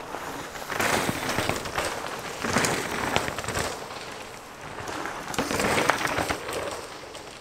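Mountain bike tyres skidding and crunching over loose dry dirt and rock, in three surges with scattered clicks and clatter.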